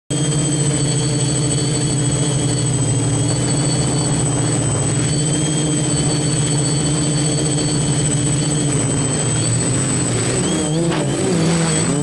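Quadcopter's electric motors and propellers running with a steady buzz, heard from the copter's own camera. From about ten seconds in, the pitch starts wobbling up and down as the motors speed up and slow erratically, with the copter beginning to lose control as it goes into a crash.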